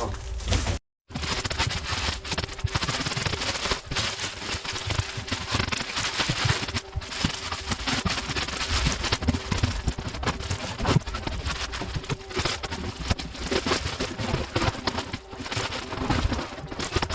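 Packaging of a parcel being torn open and handled: a dense, continuous crackling and scraping of cardboard and wrapping, with many sharp clicks.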